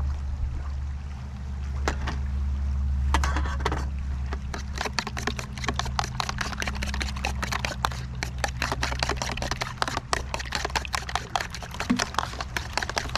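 A fork beating eggs in a plastic container, its tines clicking rapidly against the plastic, several clicks a second, from a few seconds in. A steady low rumble runs underneath.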